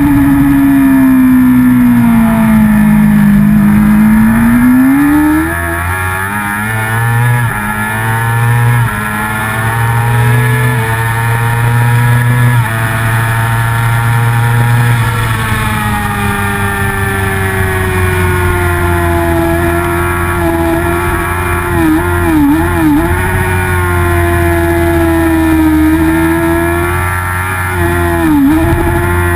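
Racing motorcycle engine heard from on board at high revs, with wind rush. The revs sink as the bike slows for a corner a few seconds in, then climb back and hold high. Near the end they dip sharply and briefly a few times at quick gear changes.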